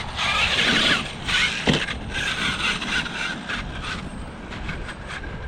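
Traxxas T-Maxx RC truck driving hard on its brushless motor, a high motor whine over the hiss of tyres on the ground. A sharp knock comes about a second and a half in.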